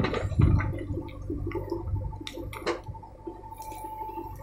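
JCB 3DX backhoe loader's diesel engine running while its backhoe bucket digs into a pile of soil and stones, with crunching and scraping in the first second or so. The engine then runs quieter as the loaded arm lifts away.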